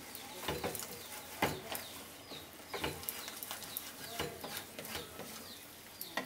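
Wooden spatula stirring and scraping a thick, sticky grated-coconut and sugar mixture around a non-stick kadai in irregular strokes, as it is cooked down for narkel naru. Short high chirps run underneath.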